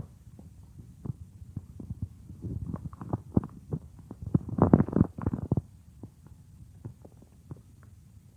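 A person's stomach gurgling: a string of small irregular pops and squelches, building to a louder bubbling gurgle about halfway through, then dying back to scattered faint pops.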